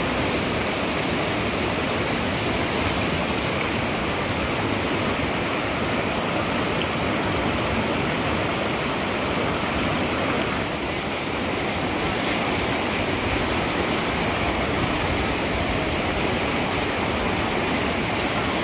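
River whitewater rapids rushing in a steady, loud roar of water.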